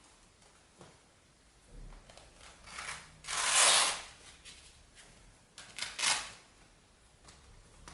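Hook-and-loop (Velcro) wrist strap of an Engage E-Series 16-ounce boxing glove ripping as it is pulled. A loud rip lasting about a second comes about three seconds in, and a shorter double rip comes near six seconds, with light rustling around them.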